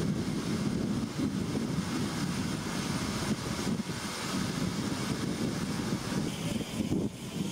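Aircraft engines running steadily: a continuous, even rumble with no distinct pitch.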